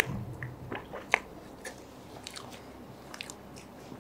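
Wet chewing and lip smacks of someone eating soft three milk cake by hand, with scattered small mouth clicks; one sharper click about a second in.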